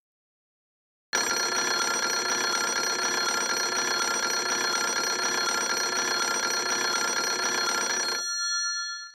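A bell rings continuously. It starts suddenly about a second in, breaks off near the end, and its ring dies away over about a second.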